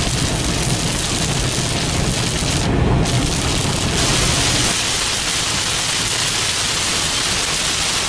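Heavy rain hitting a car's windshield and roof, heard from inside the cabin, with road and engine rumble underneath. The rain hiss grows heavier about halfway through.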